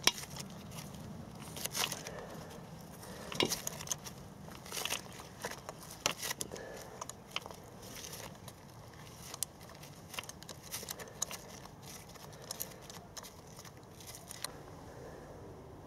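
A spark plug being loosened with a hand-turned T-handle plug socket: irregular light metallic clicks and rustling from the work glove gripping and turning the tool. The sounds thin out near the end.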